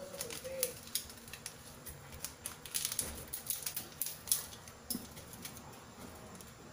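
Covered stainless-steel pot of macaroni soup boiling on a gas burner, giving irregular light ticks and pops.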